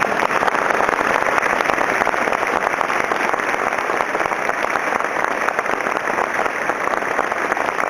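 A large crowd applauding steadily, a dense crackle of many hands clapping at once.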